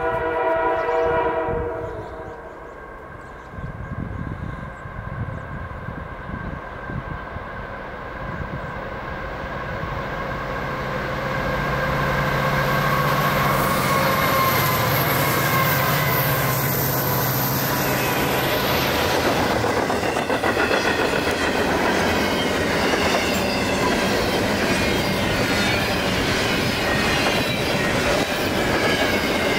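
A Canadian National diesel freight locomotive's horn chord sounds for about the first second and a half. The engine then grows louder and passes, with a low drone and a high whine. After that, double-stack container cars roll by with steady wheel-on-rail noise and faint wheel squeal.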